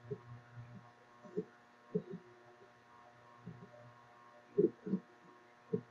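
Faint steady electrical mains hum, with a few soft, brief low knocks scattered through it.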